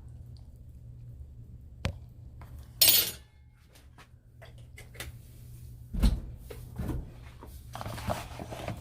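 Kitchen handling sounds: a sharp click, a brief loud rushing noise about three seconds in, then knocks and clatter of dishes and utensils with a low steady hum underneath.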